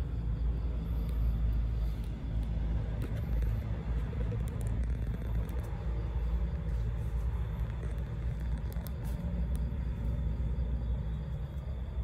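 A steady, uneven low rumble with a few faint scattered clicks.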